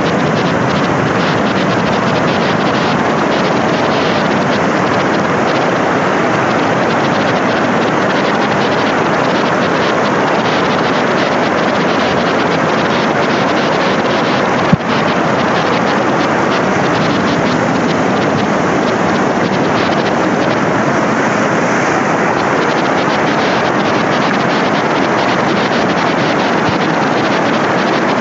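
Steady, loud rushing noise of wind and sea water, even throughout, with one brief click about halfway through.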